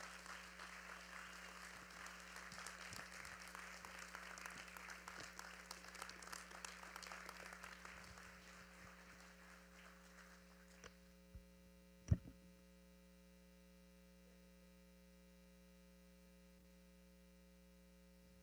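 Congregation applauding, fading out after about ten seconds. A couple of clicks and then one loud thump as a handheld microphone is handled and passed over, followed by a steady low hum from the sound system.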